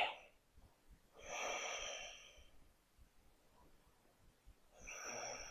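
A woman breathing softly, two audible breaths: one about a second in, another starting near the end.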